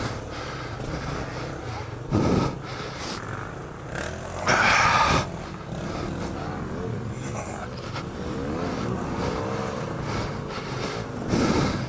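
Off-road motorcycle engine running in mud, with its pitch rising and falling. Three short louder bursts stand out: one about two seconds in, the loudest just under a second long near the middle, and one near the end.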